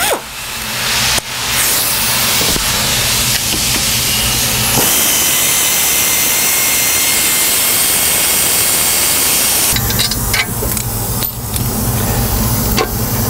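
Pneumatic air ratchet running against the exhaust manifold bolts on an LS V8's cylinder head, with a steady hiss of exhaust air. The hiss is sharpest in the middle, and a lower motor buzz and a few clicks come in during the last few seconds.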